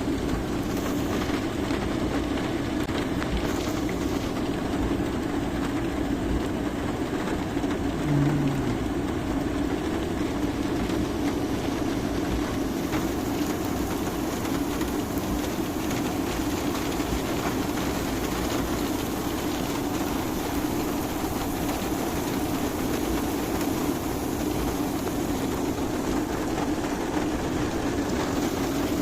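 Steady rain falling, a dense even hiss with a low rushing undertone.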